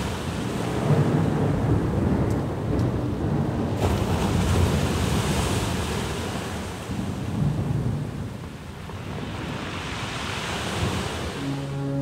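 Surf washing up a sandy beach: a steady rush of breaking waves and foam that swells about a second in and again near the end.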